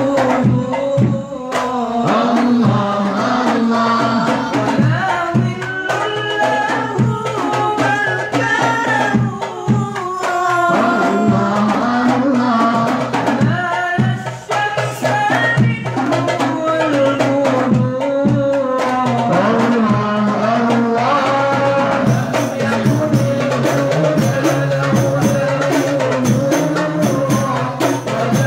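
Hadroh ensemble: voices singing a devotional song together over hand-struck frame drums keeping a steady rhythm. For the last several seconds the percussion gets busier and brighter.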